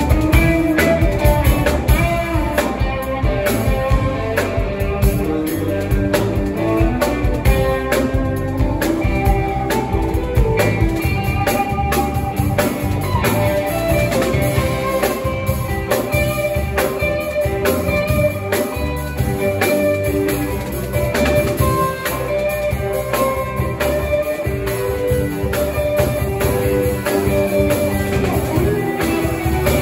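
Live rock band playing an instrumental stretch: electric guitars over a drum kit.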